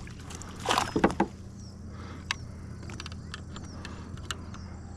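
A small hooked bass splashing at the water's surface a little under a second in, the loudest sound, followed by scattered light clicks and knocks as it is brought in to the kayak.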